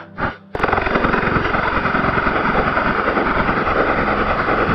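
Airsoft replica firing one long full-auto burst of rapid, evenly spaced shots, starting about half a second in and lasting about five seconds.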